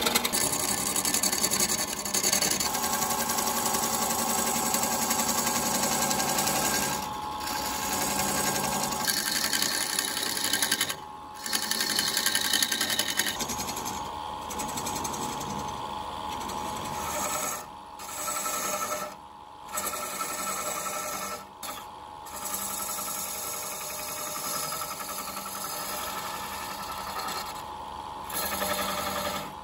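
Wood lathe running while a hand-held turning tool cuts a spinning wooden vase blank: a steady hiss and scrape of the cut over the machine's hum, dropping away briefly several times.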